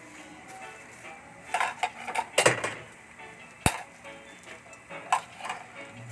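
A few scattered clinks of cutlery against dishes, the sharpest a little past the middle, over background music.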